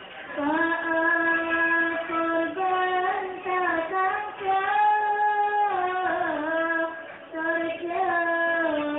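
A young female voice singing a sholawat, an Islamic devotional song in praise of the Prophet, in long held notes joined by wavering melodic turns.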